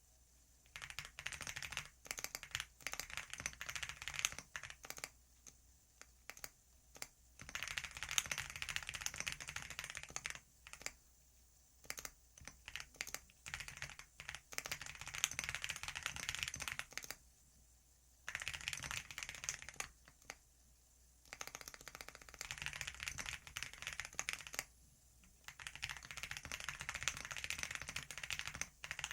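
Computer keyboard being typed on in quick runs of keystrokes, broken by short pauses of a second or two.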